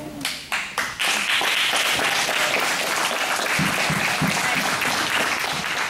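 Spectators applauding at the end of a grappling bout: a few separate claps, then steady applause from about a second in, with a few voices calling out in the middle.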